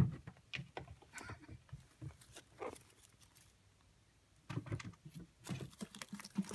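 Ragdoll kittens playing with a feather wand toy: irregular scuffles, light taps and rustles of paws and the toy. There is a soft thump right at the start, and a busier flurry of rustling from about four and a half seconds in.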